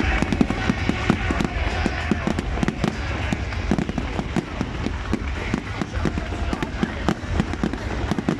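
Fireworks display going off in a dense, rapid barrage, many bangs and crackles a second without let-up. Music plays underneath.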